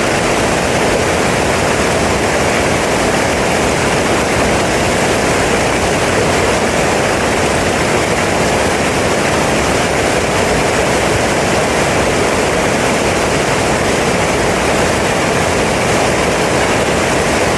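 Mountain stream water rushing over rocks, a steady, unbroken rush.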